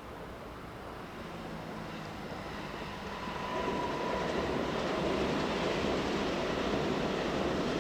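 A train passing close by, its rumble building and then swelling sharply about three and a half seconds in, and staying loud.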